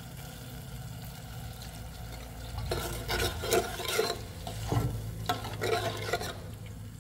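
A metal spoon stirring a fish-sauce, sugar and garlic sauce in an aluminium saucepan. The spoon scrapes and clinks against the pan in a quick irregular run, starting about three seconds in.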